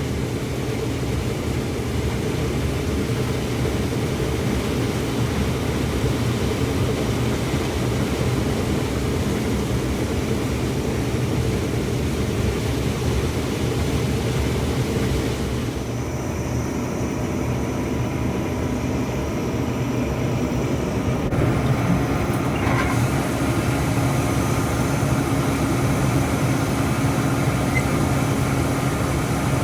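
Heavy farm machinery's diesel engine running steadily, a low drone throughout. The sound shifts abruptly about halfway through and again a few seconds later.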